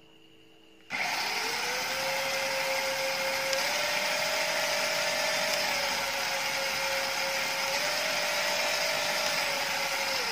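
Electric drive motors and gearboxes of a Hengjian 6WD RC rock crawler spinning all six wheels freely in the air. It is a steady whine that starts suddenly about a second in, steps up in pitch and back down twice, and begins to wind down at the very end.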